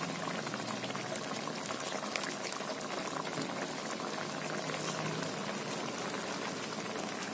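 Spicy tilapia curry simmering in a wok over a medium flame, a steady fine crackle, as instant coconut milk is squeezed into it from a sachet.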